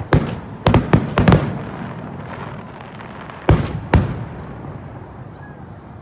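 Fireworks shells bursting overhead: a quick run of about six bangs in the first second and a half, then two more about three and a half seconds in, each trailing off in a rumble.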